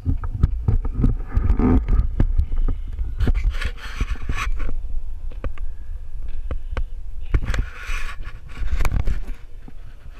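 Mountain bike on a dirt trail heard from a bike-mounted camera: frequent knocks and rattles over a low rumble of wind on the microphone. Two hissing stretches of about a second each come near the middle and towards the end.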